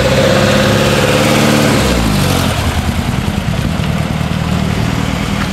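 A classic car's engine held at raised revs, which drop away about two seconds in to a lower, rougher running as the car pulls off.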